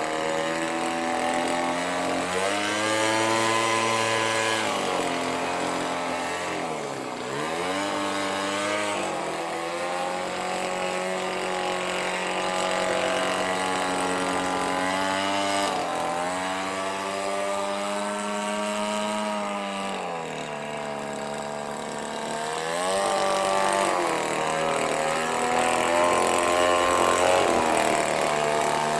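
Petrol two-stroke engine, converted from a grass cutter, running an RC aeroplane's propeller in flight. Its pitch rises and falls several times with throttle and the plane's passes: a dip about seven seconds in, a sharp rise near the middle, a drop and a rise again later.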